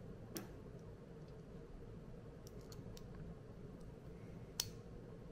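Faint clicks of small steel parts being handled as a pin is worked into a Springfield Armory 1911 pistol frame by hand, with two sharper clicks about half a second in and near the end, over a faint steady hum.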